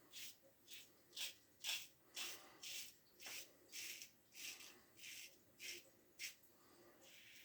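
Gem push-button single-edge safety razor scraping through facial stubble in short strokes, about two a second, each a brief quiet rasp, some louder than others; the blade is cutting the growth.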